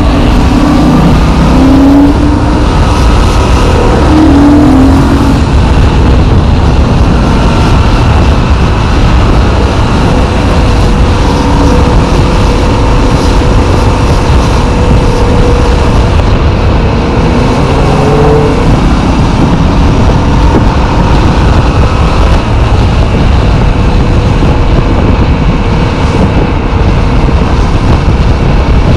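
Yamaha MT-07 motorcycle's parallel-twin engine running as the bike is ridden, its pitch rising and falling, then holding steady for a while. Heavy wind rush on the microphone.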